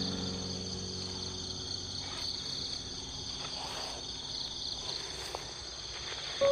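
Steady high-pitched insect chorus. Over the first couple of seconds it carries a sustained music chord that fades away.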